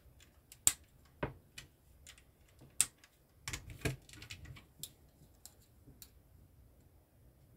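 Plastic LEGO bricks clicking and rattling as they are handled and fitted together, in irregular sharp clicks with a busier run around four seconds in, dying away after about six seconds.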